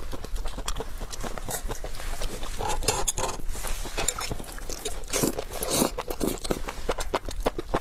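Close, wet chewing and slurping of enoki mushrooms in chili sauce, picked up on a clip-on microphone: many quick smacking clicks, with longer slurps a few seconds in and again about two thirds through.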